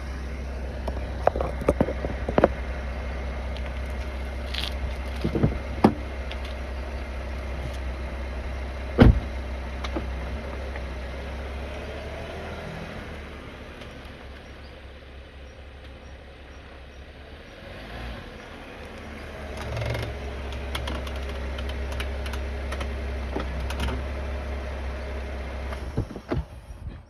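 Cadillac CTS moving slowly with a steady low rumble, while sharp cracks and knocks come from the front brakes, the loudest about nine seconds in. The rumble dies down for a few seconds, then picks up again. The owner suspects air left in the brake hydraulic lines after a brake job that was not properly bled.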